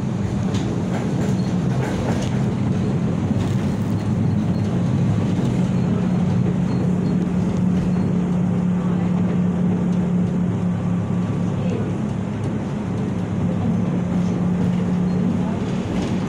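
Tatra T3 tram running along the track, heard from inside the passenger car: wheels rumbling on the rails under a steady low hum, with a few clicks in the first couple of seconds and again near the end.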